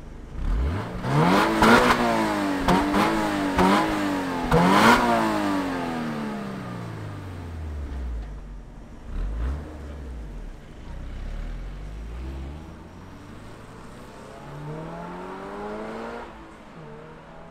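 Toyota GR86's 2.4-litre flat-four accelerating hard, its pitch climbing and dipping four times in quick succession over the first few seconds. The engine note then falls steadily and fades as the car drives away. Near the end a fainter engine note rises again.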